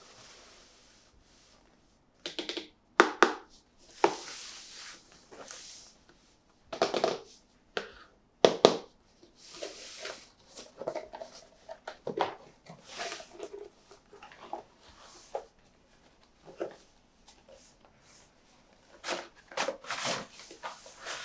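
Toy packaging being handled and opened by hand: irregular crinkling, rustling and tearing, with sharp plastic clicks and snaps, the loudest two about three seconds and eight and a half seconds in.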